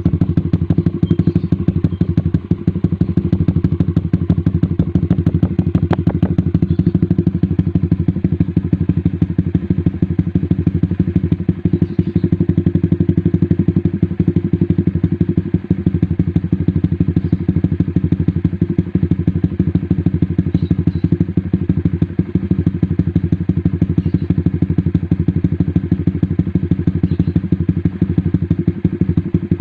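Honda Sonic 150R's single-cylinder four-stroke engine idling steadily through a Tridente 3Tech aftermarket racing exhaust. It is a loud, even burble of exhaust pulses, heard close to the muffler outlet, with no revving.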